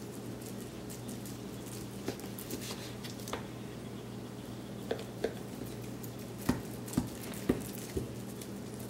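A kitchen knife sawing through a slab of smoked bacon on a plastic cutting board: faint scraping with scattered soft clicks as the blade works through the crust and meets the board, including a run of about four clicks half a second apart in the second half.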